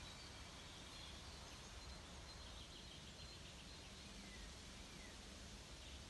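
Near silence: faint outdoor background noise with a few faint bird chirps.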